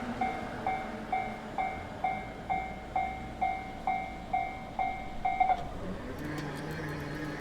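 Railway level-crossing warning bell dinging steadily, a bit over twice a second, over the fading rumble of a passing train, then stopping about five and a half seconds in.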